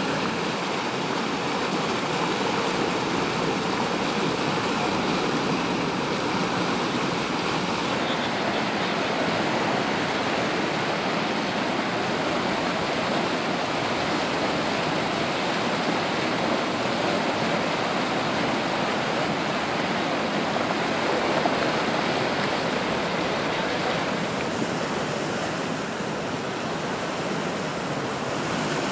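Steady rush of water flowing along a concrete irrigation canal and churning through its sluice gates.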